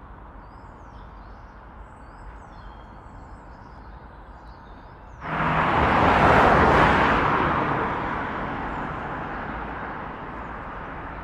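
Birds chirping over light outdoor background noise. About five seconds in, a car passes close by: its tyre and engine noise rises suddenly, peaks, and slowly fades.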